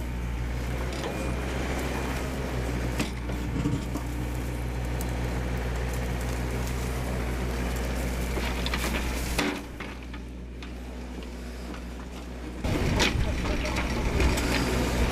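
Yanmar mini excavator's diesel engine running steadily while the machine digs. The level drops about nine and a half seconds in, then comes back louder with sharp knocks for the last couple of seconds.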